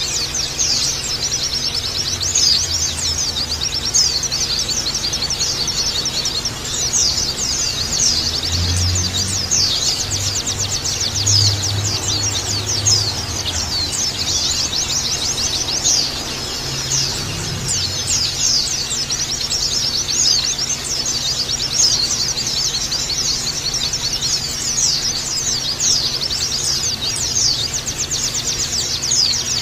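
Many white-eyes (pleci) chirping and twittering at once in a dense, unbroken chorus of high, quick notes. A faint low hum rises under it about a third of the way in and again a little after the middle.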